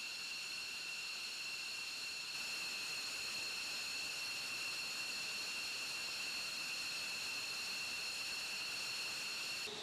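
F-15 fighter jet's twin turbofan engines running at ground idle: a steady high whine of several held tones over a hiss.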